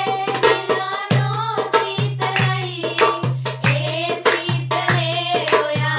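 Background music: a song with a singing voice over drums and a steady beat.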